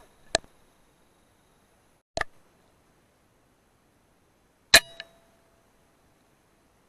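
Three sharp, short shots about two seconds apart from a hunting air rifle. The third is the loudest and is followed by a smaller knock a moment later.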